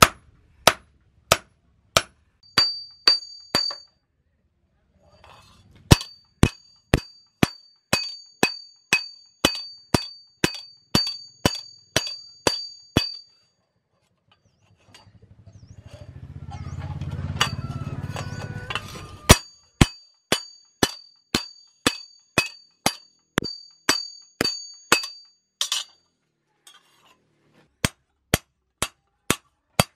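Hand hammer beating a knife blank flat on an anvil, in runs of about two blows a second, each blow with a high metallic ring. The runs pause twice briefly, and midway a low rumble swells and fades.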